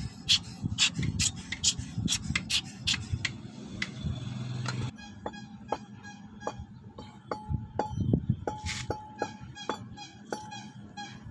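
Sharp clicks and clinks of small CVT parts being handled and fitted by gloved hands, about three a second at first. After about five seconds the background drops abruptly and lighter, sparser clicks go on.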